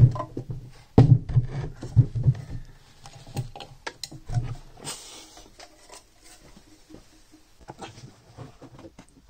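Handling noise from a large horn tweeter and a wooden speaker cabinet: a run of bumps, knocks and rubbing, heaviest in the first two and a half seconds, with a short rasp about five seconds in and quieter clicks after.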